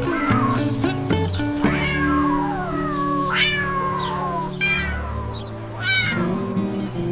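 Cat meowing several times, each meow falling in pitch, over background music with steady held notes.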